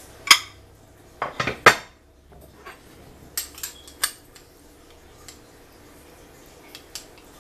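Metal kitchen clatter: sharp clinks against a stainless steel stock pot, one loud clink right at the start, a quick run of three about a second and a half in, then a few lighter clinks around four seconds.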